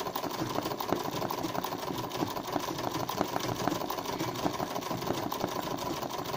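Domestic sewing machine running steadily at speed, its needle stitching in a fast, even rattle during free-motion (kara makine) embroidery.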